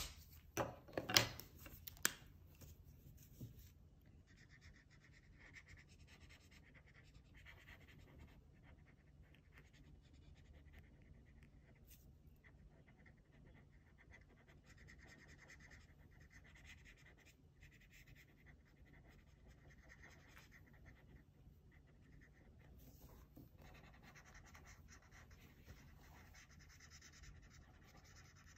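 A few sharp clicks and knocks in the first two seconds, then a Crayola felt-tip marker faintly scratching on paper in stretches as it colours in.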